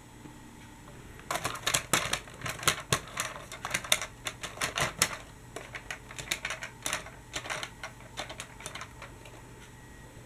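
Plastic clicking and clattering of a Dickie Toys City Liner toy tram being set onto toy rails and pushed along them by hand: an irregular run of sharp clicks, several a second, starting about a second in and thinning out near the end.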